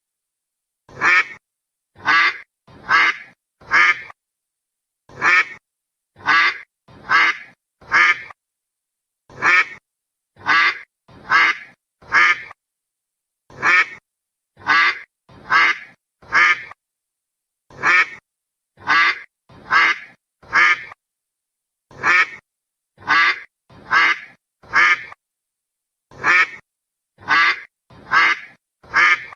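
A duck quacking, short loud quacks in runs of three or four with about a second's pause between runs, repeating steadily.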